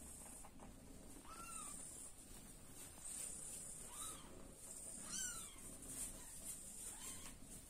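Young kittens mewing: about four short, high, thin mews, each rising and falling in pitch, spread a second or more apart, with two overlapping near the middle.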